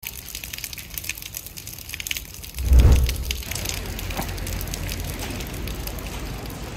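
Rain pattering close to the microphone, a dense crackle of drops, with a loud low wind buffet on the microphone about three seconds in, followed by a steady low rumble of wind noise.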